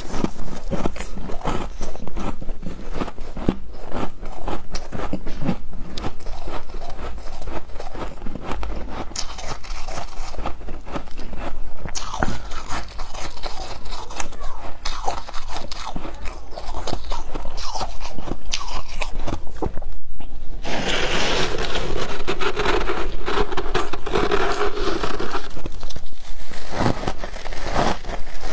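A person biting and chewing foam ice topped with flaked ice: a dense run of crisp crunches. About twenty seconds in it breaks off for a moment, then resumes fuller and louder.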